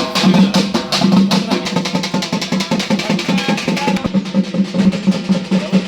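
Fast, dense drumming with a steady held tone sounding underneath: festive percussion music.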